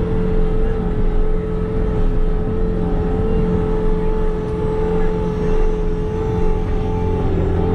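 Bobcat skid-steer loader's engine running steadily, with a steady whine above the engine note, while it handles straw bales.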